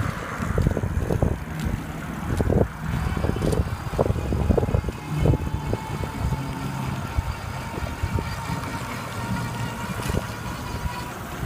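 Riding a 20-inch electric bike: wind buffeting the microphone and a stream of knocks and rattles from bumps, with a faint steady whine from about four seconds in.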